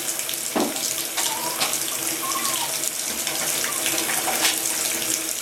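Water running steadily from a tap into a basin, a continuous splashing stream.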